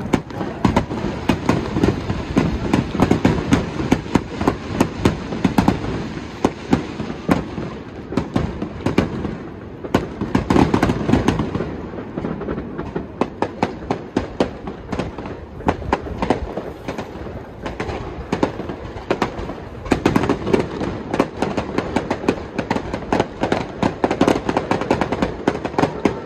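Aerial fireworks display: firework shells bursting overhead in a rapid, unbroken series of loud bangs and crackles.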